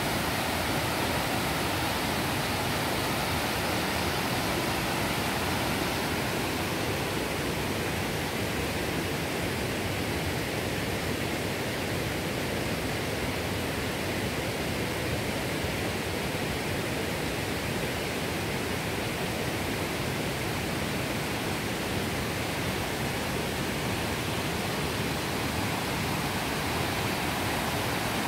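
River water rushing over rocks and small rapids, a steady, unbroken noise.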